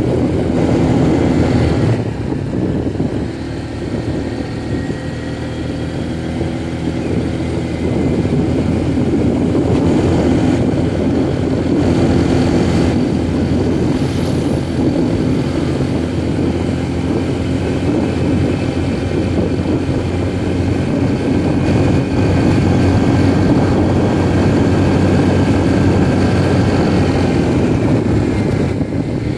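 A small motorcycle's engine runs steadily on the move. Its sound drops about two seconds in and builds back gradually over the next several seconds.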